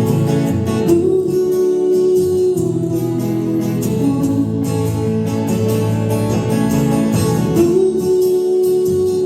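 Live acoustic music: acoustic guitar playing through an instrumental break of a folk song, with a long held melody note twice.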